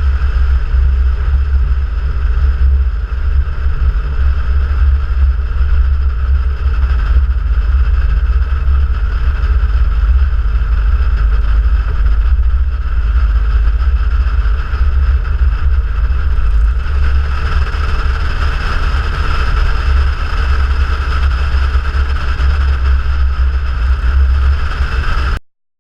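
Cessna 172's piston engine and propeller running steadily, with a loud low drone. It becomes a little brighter about two-thirds of the way through, then cuts off abruptly near the end.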